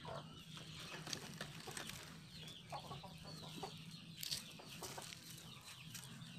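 Faint clucking of chickens, with scattered soft scrapes and knocks.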